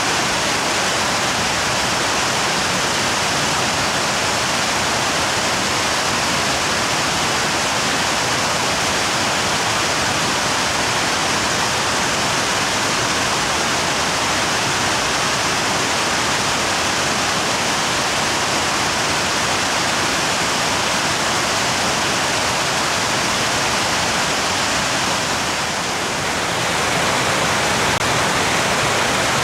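Waterfall in spate after prolonged heavy rain, a steady rush of falling water, carrying a lot of water. The level dips briefly near the end.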